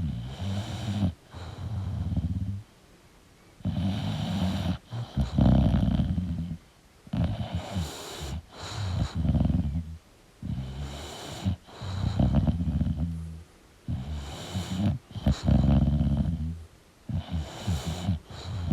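English bulldog snoring in its sleep: a low, pitched snore on each breath in and each breath out. The snoring comes in about five even breath cycles, with short quiet gaps between breaths.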